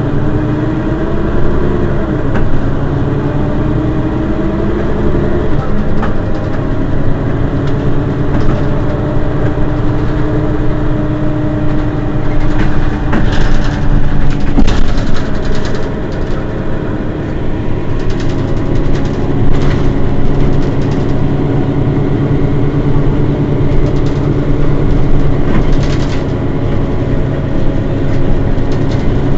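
Mercedes-Benz Citaro city bus's rear-mounted engine idling steadily while the bus stands still, with a few short hisses around the middle.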